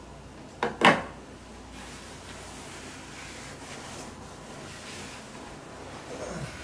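Duvet and pillow rustling as a person shifts and settles in bed, with a loud, sharp double thump a little under a second in and a short sound falling in pitch near the end.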